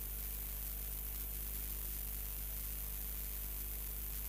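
Steady electrical hum with hiss from the audio line, unchanging throughout, with no other sound on top.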